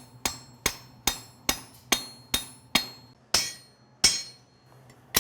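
Blacksmith's hammer striking hot steel on an anvil in a steady rhythm, about ten blows at roughly two and a half a second, each with a short metallic ring, while the ends of a bottle-opener blank are drawn in. There is a pause about four seconds in before the next blow.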